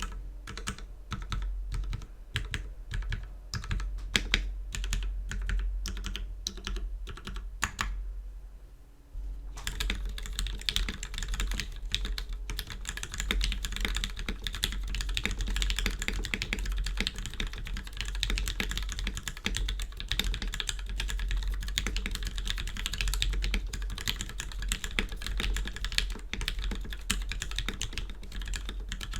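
Mechanical keyboard, a polycarbonate-cased Canoe 65% with lubed and filmed Gateron Ink Black linear switches on a stainless steel plate, being typed on. Separate, spaced keystrokes for about the first nine seconds, then fast continuous typing.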